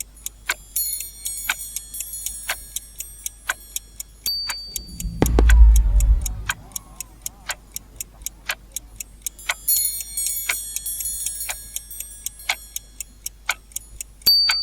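Countdown timer sound effect: a clock ticking steadily, about once a second, with a shimmering high chime over some stretches. About four seconds in, a short high beep is followed by a deep boom lasting about a second, and the same beep comes again near the end.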